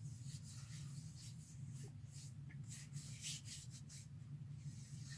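Fingertips rubbing a slippery skincare product into the skin of a forearm: a series of soft, faint swishes, repeated irregularly, over a steady low hum.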